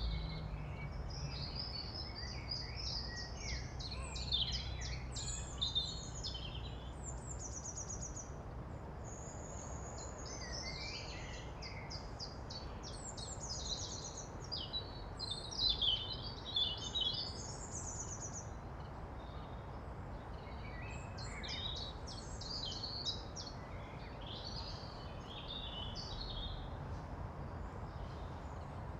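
Several songbirds singing and chirping, with quick trills and short calls, over a steady low background rumble.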